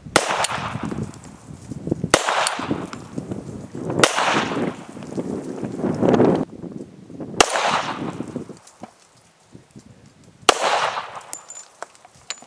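Five pistol shots from a metal 3D-printed (DMLS stainless steel) 1911 firing .45 ACP, spread over about ten seconds. Each sharp crack is followed by a long echoing decay.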